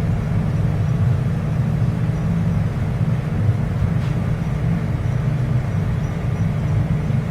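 Steady low rumble and hum of an asphalt plant's machinery running.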